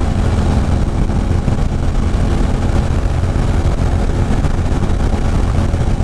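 Motorcycle cruising at steady speed: an even engine drone with wind and road noise on a helmet-mounted microphone.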